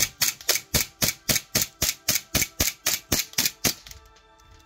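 Airsoft pistol fitted with a tracer unit firing a full magazine of tracer BBs in rapid semi-automatic shots, about four a second, about fifteen in all. The shots stop about four seconds in.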